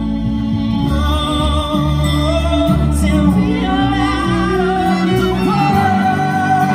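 Live band music: a melody of long held notes with vibrato over a moving bass line.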